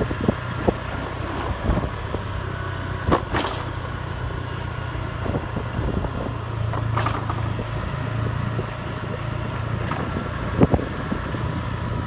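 Vehicle engine running steadily at idle, a low, even hum, with a few short knocks and clicks of handling on top.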